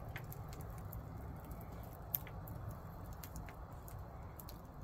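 Wood campfire crackling faintly, with scattered small pops and snaps and one sharper pop about two seconds in, over a low steady rumble.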